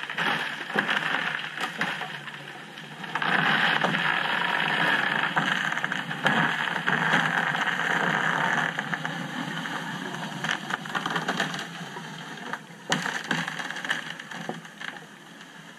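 A truck driving across the ice 400 to 500 yards away, heard underwater beneath the ice as a steady noise. The noise grows louder about three seconds in, holds for several seconds, then fades toward the end. A few sharp clicks are scattered through it.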